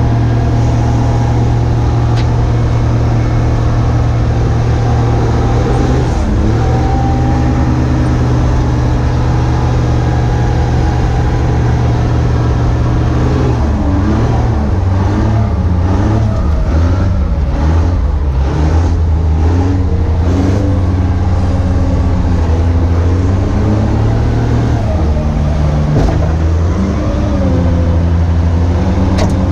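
Vehicle engine running steadily, its pitch stepping and swinging up and down several times as the revs change.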